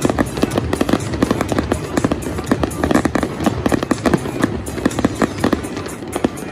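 Fireworks bursting and crackling in quick, irregular succession, several bangs a second, with music playing underneath.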